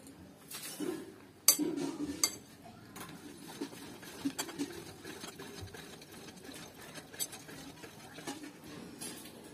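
Metal spoon clinking and scraping against a ceramic bowl of chicken curry, with a sharp clink about a second and a half in and a few lighter ones after, over the soft sound of fingers mixing biryani rice on a plate.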